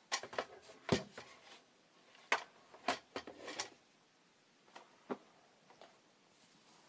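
Scattered light clicks, knocks and rubbing close to the microphone, most of them in the first four seconds: handling noise from a handheld phone and clothing moving against it.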